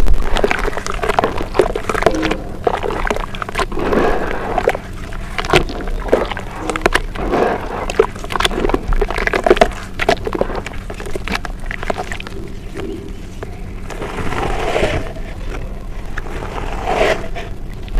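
Close-miked crunching of brown dirt: many irregular crackling crunches, loud throughout.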